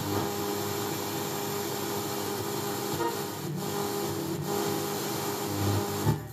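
Panasonic RX-CS710 radio-cassette recorder's speaker hissing with static as its tuning dial is turned between stations, with faint wavering tones of passing signals under the hiss. A sharp pop about six seconds in.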